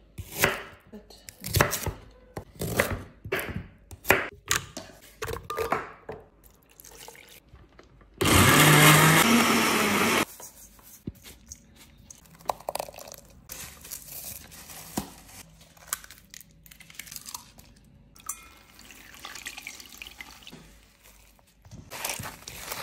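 A knife chopping an onion on a wooden cutting board, a steady series of cuts. About eight seconds in, a kitchen blender runs for about two seconds, the loudest sound, followed by quieter handling in a steel bowl.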